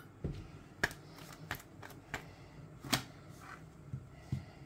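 A string of light clicks and knocks from a plastic cooking-oil bottle being handled and set down on the kitchen counter. The two sharpest come about a second and three seconds in, over a low steady hum.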